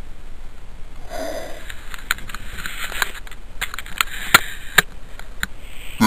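A person sniffing sharply about a second in, followed by a run of irregular sharp clicks and light rustling.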